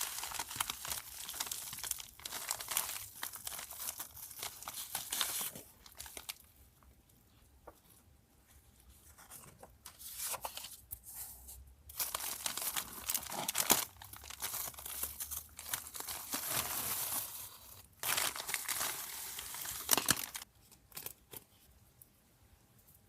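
Packaging being handled and torn open by hand: bouts of crinkling and tearing, broken by a quiet pause about a third of the way in and fading out near the end.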